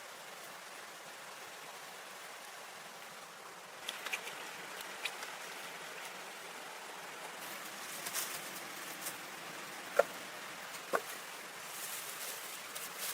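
Steady hiss of running water. From about four seconds in there are scattered light clicks and handling noises, and two sharp knocks come about a second apart near the end.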